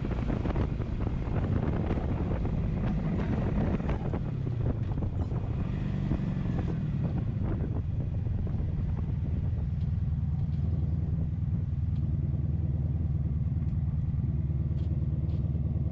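1983 Honda Sabre's V4 engine running under way, with wind buffeting the microphone for the first half. The engine speed rises and falls a few times, then the engine runs steadily as the wind noise drops away.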